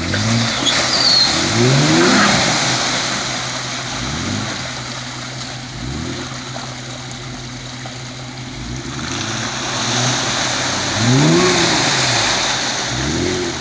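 Jeep Wrangler Unlimited's engine revving up and falling back again and again as it drives through deep mud. Mud and water are splashing around the spinning tyres.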